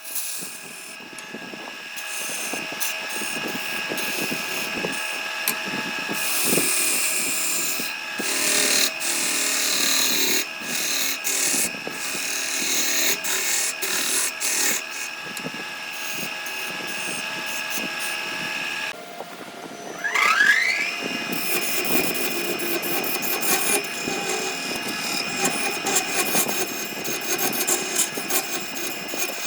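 Power tool motor running with a steady whine while it scrapes and cuts wood. It cuts out about two-thirds of the way through, then spins back up with a rising whine and carries on cutting.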